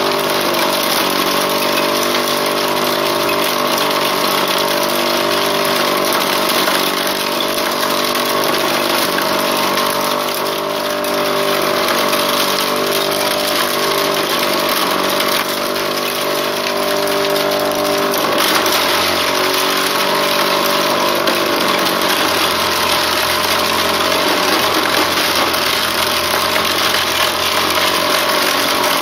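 The motor driving a homemade wooden corn sheller runs steadily. About eighteen seconds in, its note changes and a lower hum comes in.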